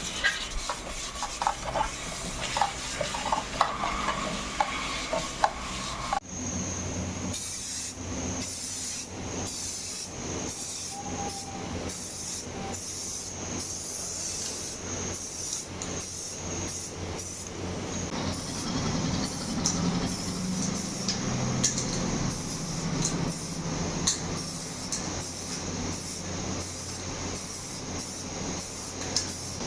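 Repeated hand rubbing strokes on wheel-hub parts, about two a second, with light metallic clinks in the first few seconds.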